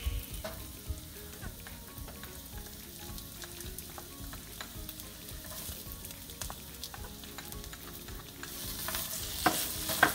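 Diced onion, garlic and red bell pepper sizzling in a copper-coloured frying pan as tomato paste is stirred in with a black spatula, which taps and scrapes against the pan many times. The sizzle grows louder about eight seconds in.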